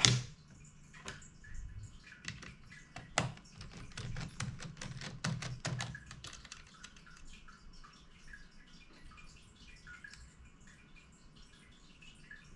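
Small clicks and taps of hands handling and fitting small laptop and SSD parts, a quick run of them for about the first six seconds, then only occasional faint ones.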